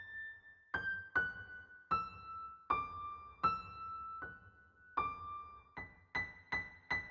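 Background music: a slow piano melody of single notes, struck one at a time, each ringing and fading. The tune steps down, rises again, and ends with a few quick repeated notes near the end.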